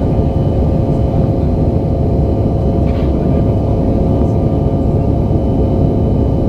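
Steady cabin noise of a Bombardier CRJ-900's rear-mounted GE CF34 turbofans, heard inside the cabin: a deep rumble with a steady hum of several tones.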